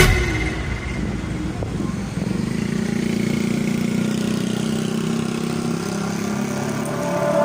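Street traffic with a vehicle engine running steadily.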